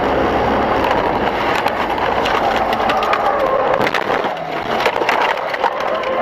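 Car crash heard from inside the car: a loud, rough rushing noise packed with sharp cracks and clatters throughout, the crunching and breaking of a vehicle going out of control and tumbling.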